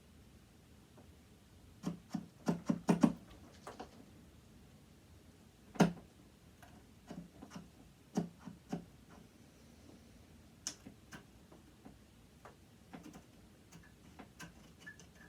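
Metal sewing-machine parts and a screwdriver clicking and knocking as the machine is taken apart: a quick run of about six clicks around two seconds in, a sharp knock near six seconds, then a few more knocks and lighter scattered ticks.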